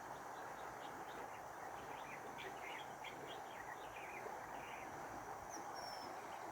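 Small birds chirping in quick short calls over a steady rush of flowing river water. A single brief whistle comes near the end.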